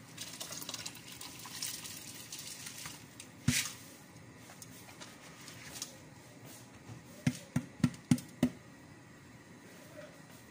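Dry Egyptian rice poured from a plastic container into a pot of hot chicken broth, a soft hissing patter and splash. A single sharp knock comes about a third of the way in, and a quick run of five sharp knocks about three quarters through.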